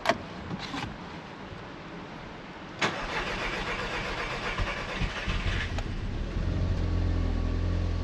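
Audi TT engine being started with the starter motor: it cranks from about three seconds in, catches near six seconds and settles into a steady, slightly high idle. This is the first start after a cylinder head rebuild, and the high idle is cold-engine idle.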